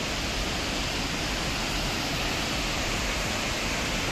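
Steady rush of water from a waterfall: an even, unbroken noise that holds the same level throughout.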